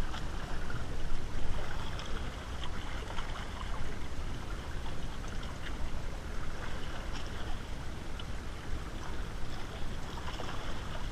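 Sea water lapping and trickling among the rocks of a breakwater, a steady wash of noise with a deep rumble underneath.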